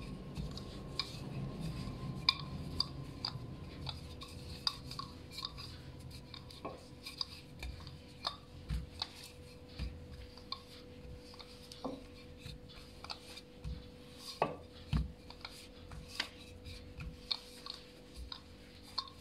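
Wooden rolling pin rolling out a sheet of dough on a stone countertop: a low rolling rumble in the first few seconds, then frequent light, irregular knocks and clicks as the pin and hands meet the dough and counter.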